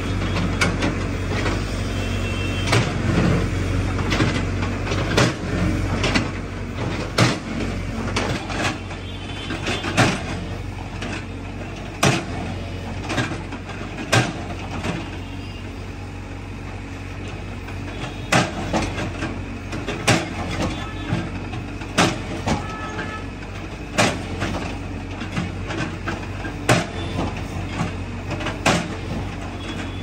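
Tata Hitachi mini excavator's diesel engine running steadily at close range, with sharp knocks every couple of seconds.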